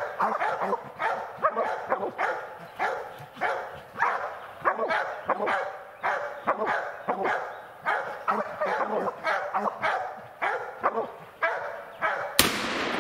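Bear hounds barking steadily at about two barks a second, baying a black bear they have treed. A single sharp click comes near the end.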